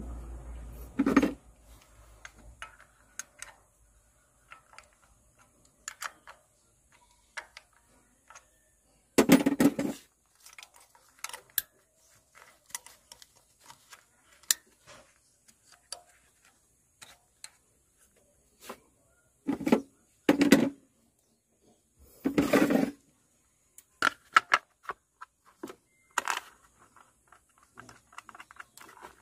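Scattered clicks, clinks and short clatters of hand tools and metal parts being handled, with several louder knocks and rattles spread through and quiet between them.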